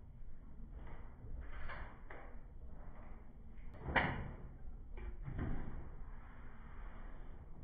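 Faint handling noise: a few soft knocks and rustles over a low hiss, the loudest about four seconds in.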